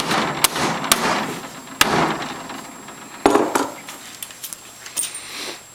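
Clicks and knocks of hand work fitting a plastic float and its hanger onto a wire-mesh oyster cage, a few sharp strokes with rattling and rustling between, the loudest about three seconds in.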